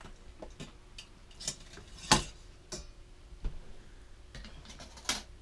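Scattered light clicks and knocks of a wire trivet rack and silicone egg-bite mold against an Instant Pot's stainless steel inner pot as they are lifted out with pot holders and set on a counter, the loudest knock about two seconds in and another near the end.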